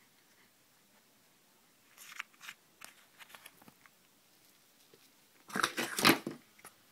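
Scattered small clicks and crackles, then a louder rustling, crackling burst lasting under a second, about five and a half seconds in.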